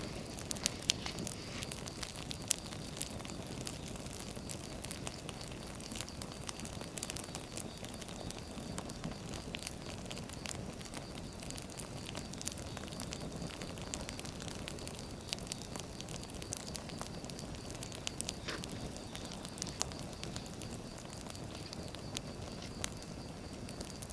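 Wood fire crackling: irregular sharp pops and snaps over a low, steady rumble of burning firewood.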